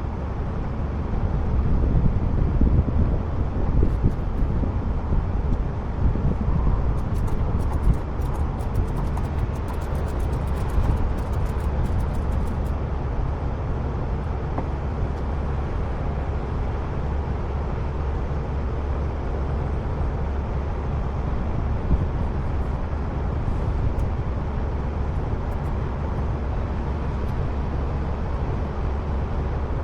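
Heavy truck engine running steadily, a low even rumble. A run of faint rapid clicks comes in about seven seconds in and stops about six seconds later.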